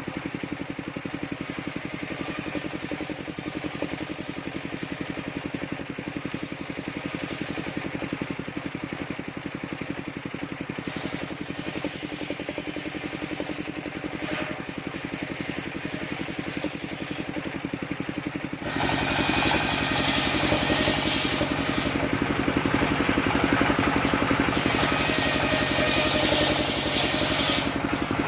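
Engine-driven mobile circular sawmill running steadily with a regular engine beat. About two-thirds of the way in it gets suddenly louder with a rasping hiss as the blade cuts into sengon wood, the rasp easing briefly a couple of times.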